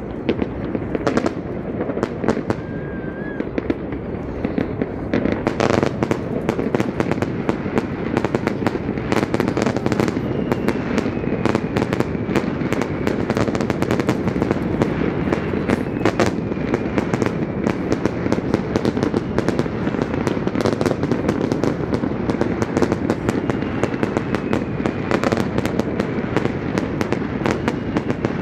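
Fireworks display: a dense, continuous run of bangs and crackling bursts that gets busier about six seconds in.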